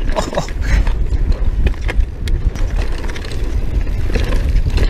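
Mountain bike rolling fast down a dirt singletrack: a heavy wind rumble on the bike-mounted microphone, tyre noise on the dirt, and scattered clacks and rattles from the bike over bumps.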